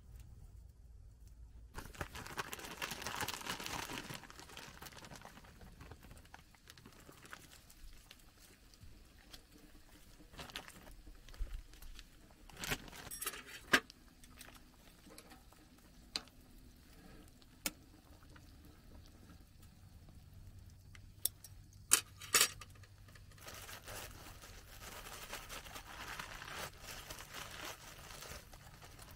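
Hot pot broth simmering and bubbling in a frying pan on a small stove, with a few sharp clicks in two clusters, near the middle and about two-thirds through.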